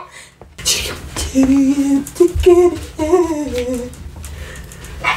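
A girl humming a short tune in a low voice: a held note, a few short notes, then a last note that slides downward.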